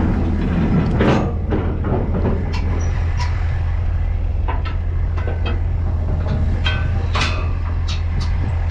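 Heavy diesel machinery running steadily, with frequent irregular metallic clanks and rattles over the engine's drone.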